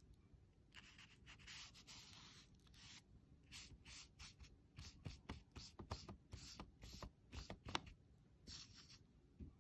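Faint brushing of a wet flat watercolour brush across watercolour paper: a soft hiss of longer strokes, then a quicker run of short strokes with one sharper tick near the end.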